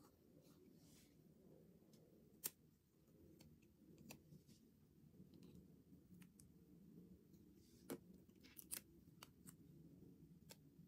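Faint handling of paper stickers on a sticker-book page: soft paper rustles and scattered sharp clicks and taps as stickers are placed and pressed down, the sharpest about two and a half seconds in and a quick cluster near the end.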